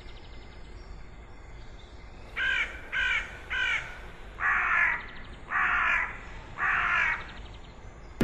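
A crow cawing six times: three short harsh caws in quick succession, then three longer, drawn-out caws spaced about a second apart.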